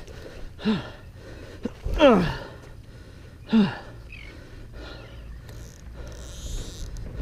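A man gasping and groaning out loud three times, each breath falling in pitch, the loudest about two seconds in: a fisherman out of breath from the strain of fighting a big fish.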